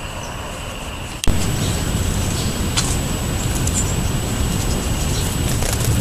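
Outdoor ambience that jumps suddenly about a second in to a louder, steady low rumble of road traffic, with a few faint high chirps of house sparrows over it.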